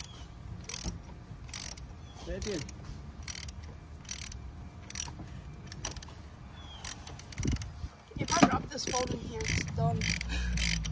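Socket ratchet clicking in short bursts on each back-stroke as a 24 mm socket turns the oil filter housing cap loose. The strokes come about once a second, then faster near the end.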